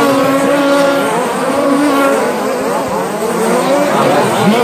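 Several radio-controlled short course trucks racing together, their motors whining in overlapping tones that slide up and down in pitch as they speed up and brake.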